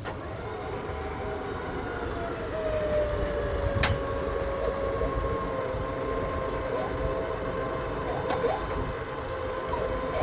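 Powered hoist whining steadily as it lifts a heavy beef carcass on a spreader bar, its pitch sagging a little as the load comes on. A single sharp click about four seconds in.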